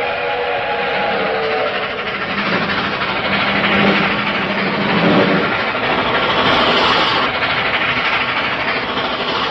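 Old cartoon train sound effect: the steady rush of a running train, with a whistle's chord sounding over it for the first couple of seconds and a lower tone holding until about five and a half seconds in.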